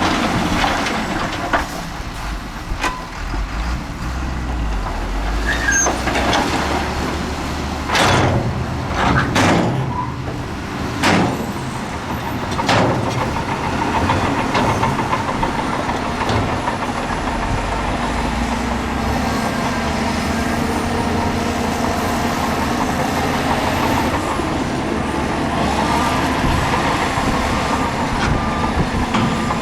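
Heavy diesel earthmoving machinery running steadily, with a cluster of loud knocks about eight to thirteen seconds in and a faint repeated beep near the end.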